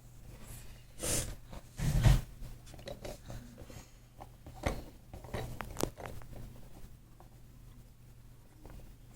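Scattered small handling noises: light taps, clicks and rustling, with two louder bumps about one and two seconds in.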